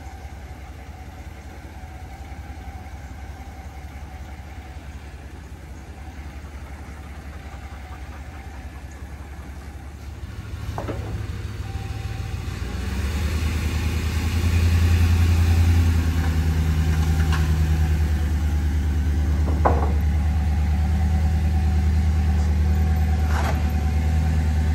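2011 Ram 1500's 5.7-litre Hemi V8, still on its stock mufflers, idling with a low rumble, then pulling forward under light throttle from about ten seconds in. The rumble grows louder as the truck climbs onto the ramps, then settles into a steady, louder idle.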